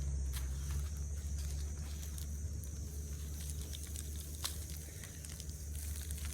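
Hands rummaging through dry soil in a potato-growing basket, with scattered small crackles and clicks. A steady high insect chirring and a low steady rumble run underneath.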